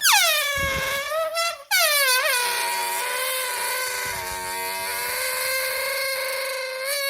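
Balloon deflating with air squealing out through its stretched neck: a loud squeal that drops in pitch over the first second, breaks off briefly just before two seconds in, then goes on as one long, fairly steady squeal.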